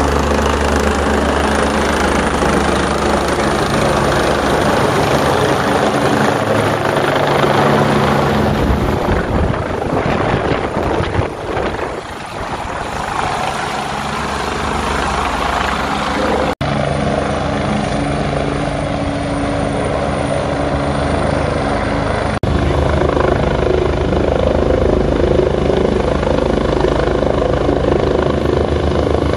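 Rescue helicopter flying low overhead, its rotor beating steadily and loud. The sound fades a little about twelve seconds in, then builds again as it comes back to hover close by, with two very brief cuts in the sound later on.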